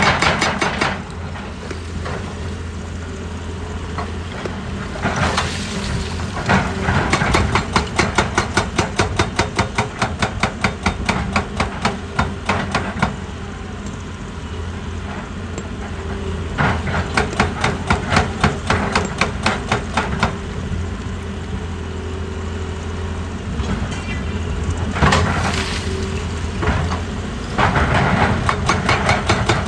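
Excavator's engine running steadily, with three long spells of rapid, evenly spaced hammering strikes and a few single heavier knocks between them.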